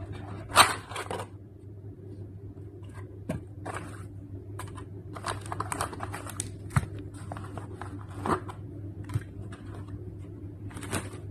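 A small cardboard phone box and its packaging being handled and opened: scattered rustling, scraping and light knocks, the loudest knock about half a second in, over a steady low hum.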